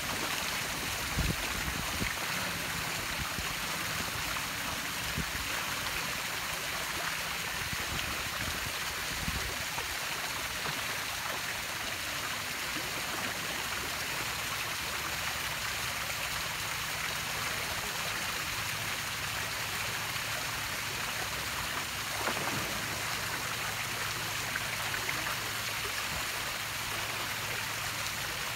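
Steady rush of moving water with a faint low steady hum underneath.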